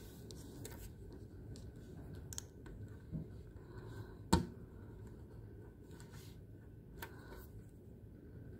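Handling noise: scattered light clicks, scratches and rustles, with one sharper click about four seconds in, over a faint steady whine.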